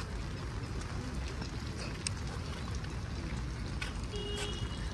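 Steady rain falling, with a low rumble underneath and a few sharp drip taps close by. A brief high tone sounds about four seconds in.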